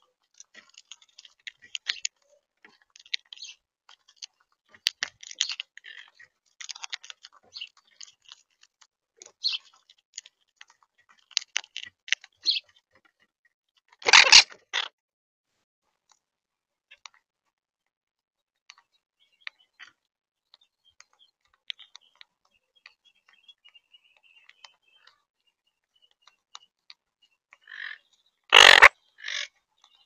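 Monk parakeets feeding at a seed feeder right at the camera: beaks cracking seeds and rummaging through the tray in a quick, irregular run of clicks and crackles. Two loud, sudden bursts come about 14 s and 29 s in.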